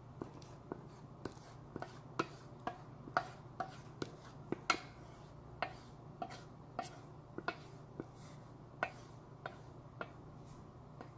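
Wooden spatula knocking and scraping against a metal pot as thick acorn jelly mixture is scraped out, a run of sharp clicks at an uneven pace of roughly two a second. A steady low hum runs underneath.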